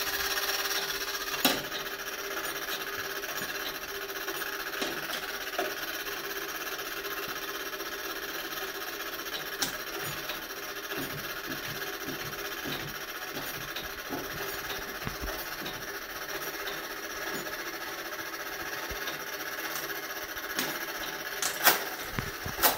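Gamewell fire alarm telegraph register running as a box signal comes in: a steady mechanical whirring with scattered light clicks, and a few sharper clacks, two of them loud near the end.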